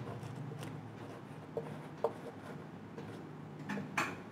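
Chalk writing on a blackboard: short scratches and taps of chalk strokes at irregular intervals, the strongest near the end.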